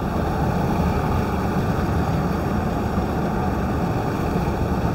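Steady low rumble and hiss of a running car heard inside its cabin.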